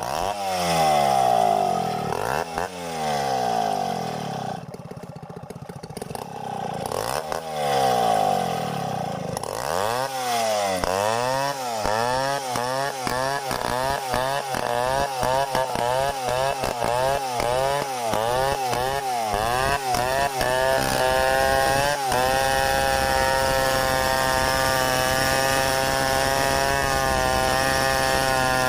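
Stihl 070 two-stroke chainsaw revving up and down, then a rapid run of throttle blips, then held at a steady high speed from about two-thirds of the way in.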